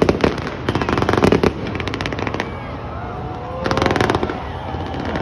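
Aerial fireworks bursting and crackling in rapid volleys of sharp pops over a continuous low rumble. The crackle is densest in the first second and a half and comes again in a strong burst about four seconds in.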